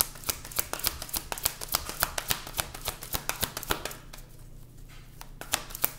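Tarot deck being shuffled by hand: a quick, uneven run of crisp card clicks and slaps, easing off about four seconds in and picking up again just before the end.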